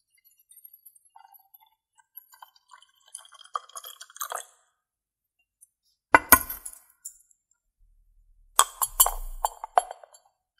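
Ceramic teapot and mug being handled: faint drips and small clinks early on, a sharp clink about six seconds in as the lid goes back on the ceramic teapot, then a short clatter of knocks near the end as a wooden lid is set onto the ceramic mug.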